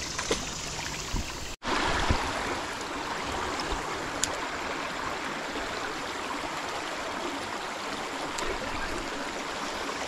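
Shallow creek water running over rocks in a riffle, a steady flowing sound. It cuts out for an instant about a second and a half in, then goes on a little louder.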